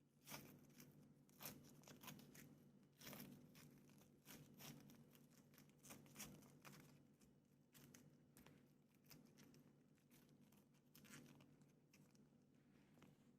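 Faint, irregular crackling and rustling of something dry being handled, many small crackles and scrapes, denser in the first half, over a faint steady hum.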